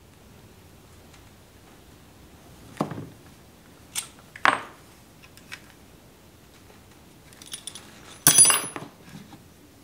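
Small steel hand tools and parts clinking and clattering on a workbench as they are picked up and handled. A few separate metallic knocks come first, and a louder ringing clatter follows near the end.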